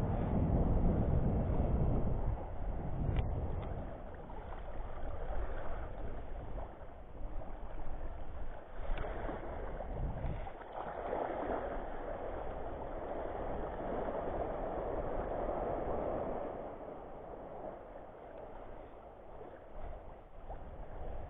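Wind on the microphone over small waves lapping in shallow sea water, with a couple of brief clicks.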